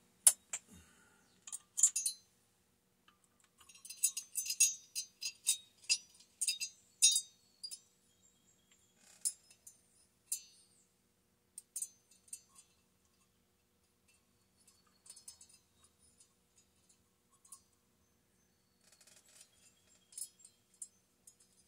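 Small metal chainsaw parts and hand tools clinking and rattling as they are handled: a few sharp clicks, a dense run of jingling clinks about four seconds in, then scattered light taps with a quieter stretch before more clinks near the end.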